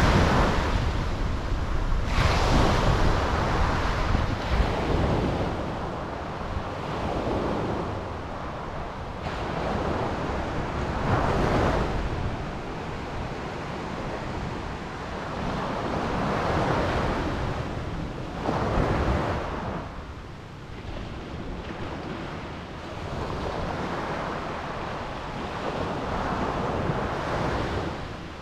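Ocean surf at night: small waves break and wash in one after another every few seconds, with wind rumbling on the microphone underneath.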